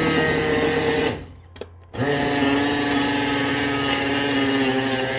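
Countertop blender motor blending a smoothie of soaked frozen blueberries, banana, protein shake and water. It runs with a steady whine, stops about a second in, then starts again about two seconds in at a lower pitch and keeps running.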